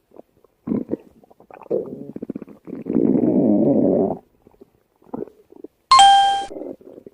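Human stomach growling: irregular gurgles and a long churning rumble of a few seconds. About six seconds in comes a short ringing tone that fades out.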